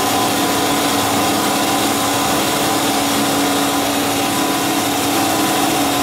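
Carbide-tipped bandsaw blade of a Cosen CNC-430 bandsaw cutting through an 8-inch round bar of 304 stainless steel. It makes a steady machine noise with a few constant tones running through it.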